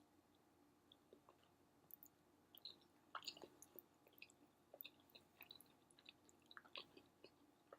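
Faint close-up chewing of a bagel sandwich with scrambled eggs: soft, scattered wet mouth clicks and smacks, a little busier about three seconds in and again near the end.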